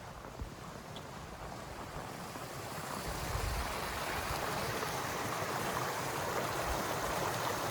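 Running water at a hot spring, a steady rushing that grows louder over the first few seconds and then holds, with a few soft low thumps of footsteps.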